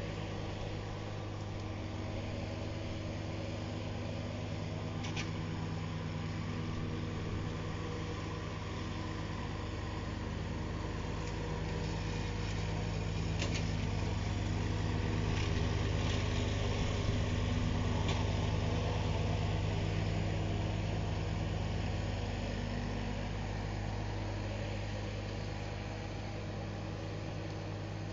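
Steiner articulated tractor with front mower deck running steadily while mowing, an even engine hum that grows louder in the middle and then eases off.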